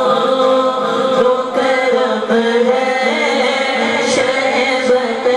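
A man singing a naat, Urdu devotional verse in praise of the Prophet, into a microphone in long, wavering held notes with short breaks between phrases.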